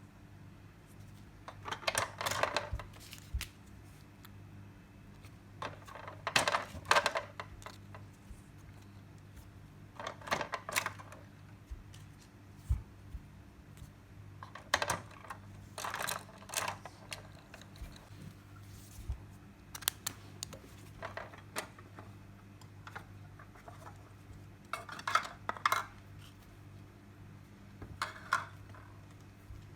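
Small hard plastic toy pieces clicking and rattling as they are handled, in short clusters every few seconds, over a faint steady hum.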